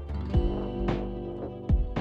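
Background music: sustained synth chords over a bass line with a steady beat.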